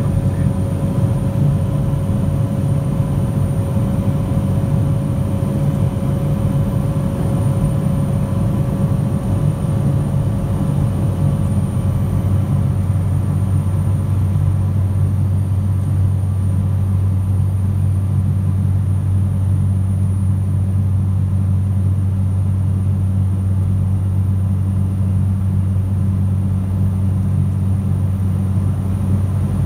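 Aircraft engine drone heard inside the cabin in flight: a steady, unchanging low hum.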